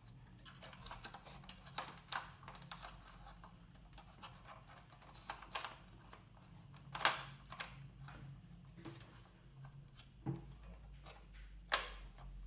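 Light plastic clicks and taps as the cab door of a toy RC truck is opened and a small passenger figure is worked into the cab. There are a few sharper clicks, one about seven seconds in and two more near the end.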